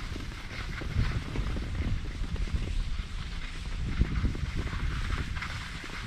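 Wind buffeting the microphone of a helmet-mounted GoPro as a skier descends, with skis hissing and scraping over snow.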